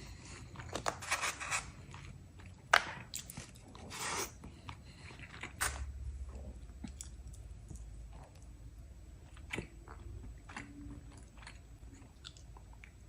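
A person biting and chewing food close to the microphone, with crisp crunches and wet mouth sounds; the crunching is busiest in the first half, with one sharp crunch about three seconds in, then eases to slower chewing.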